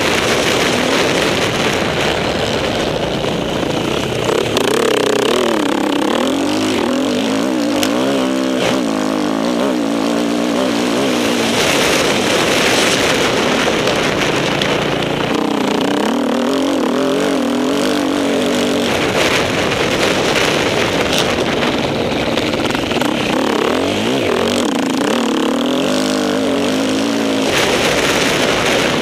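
Off-road motorcycle engine running hard, its pitch rising and falling again and again as the throttle is opened and closed over rough ground.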